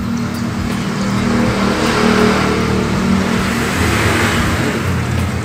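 A motor vehicle passing, its engine and road noise swelling near the middle and easing off over a steady low hum.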